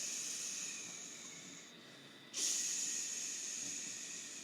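A person making a long hissing "shhh" whoosh with the mouth, twice, imitating a plane taking off. The first hiss fades out a little under two seconds in; the second starts abruptly just after and slowly dies away.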